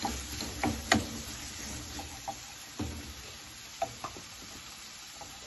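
Shrimp and squid pieces sizzling in oil in a nonstick pan as a wooden spatula stirs them, with a handful of sharp taps of the spatula against the pan, the loudest about a second in.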